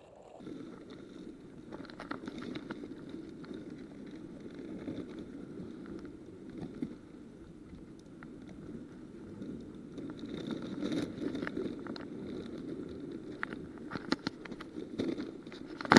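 Steady low rushing noise, with scattered clicks and scrapes as metal pliers work a hook out of a fish's mouth.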